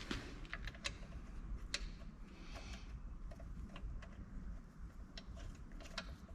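Scattered light clicks and taps at irregular intervals over a faint steady low hum.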